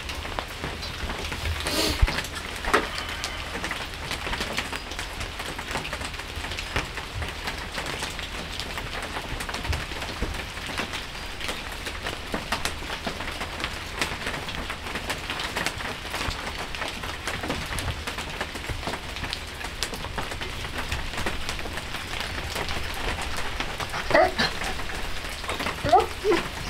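Steady rain falling and pattering on surfaces as a dense, even patter of drops. A few louder knocks and short squeaks stand out about two seconds in and again near the end.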